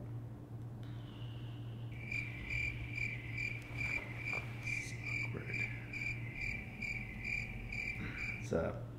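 Cricket chirping added as the comic sound effect for an awkward silence: a steady high chirp about three times a second, starting about two seconds in and stopping just before the end, over a faint low room hum.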